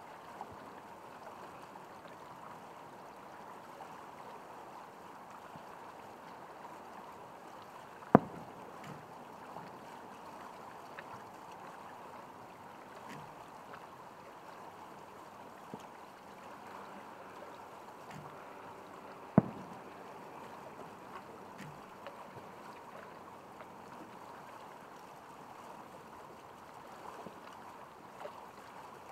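Aerial firework shells booming: two loud, sharp bangs about eleven seconds apart, each with a short echoing tail, over a steady faint hiss of the open night air.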